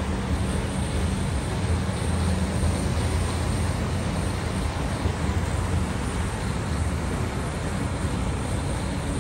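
Steady roar with a low hum at a grill where a handheld gas blowtorch is flaming Wagyu beef skewers.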